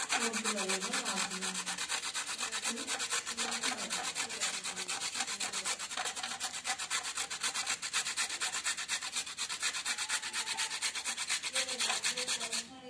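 A carrot being grated by hand on a small metal grater with a red plastic frame, in quick, regular scraping strokes. The scraping stops suddenly just before the end.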